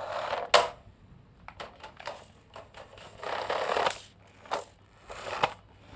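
Rustling and handling noises in irregular bursts, with a sharp click about half a second in and a few lighter clicks.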